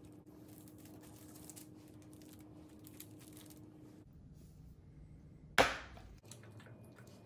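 Faint handling sounds of hands pressing a plastic cookie cutter into raw ground beef on a countertop, over a low steady hum. About halfway through comes a single sharp knock, by far the loudest sound, which dies away within half a second.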